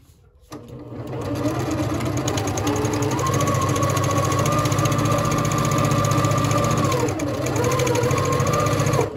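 Electric sewing machine stitching a seam through fabric and a paper foundation at a short stitch length, a fast even chatter of needle strokes over a motor whine. It starts about half a second in, runs up to a steady speed, slows briefly about seven seconds in, then runs on and stops just before the end.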